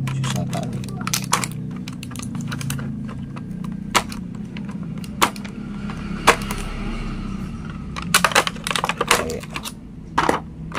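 Irregular clicks and taps of hands rummaging through a clear plastic packaging tray in a cardboard box, with a quicker flurry of clicks near the end. A steady low hum runs underneath.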